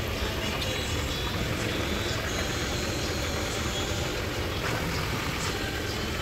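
A steady low hum with a hiss over it, like a machine running, with a few faint light clicks.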